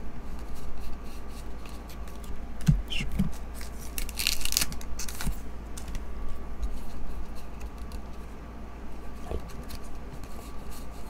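Topps Star Wars trading cards being slid off a hand-held stack one at a time: soft card-on-card swipes and light ticks, with one louder rub about four seconds in. A steady low hum runs underneath.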